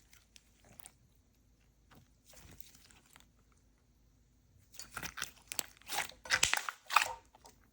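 Thick, putty-like clear slime being squeezed and kneaded by hand. There are faint scattered clicks at first, then from about five seconds in a run of loud, crackly clicks and pops.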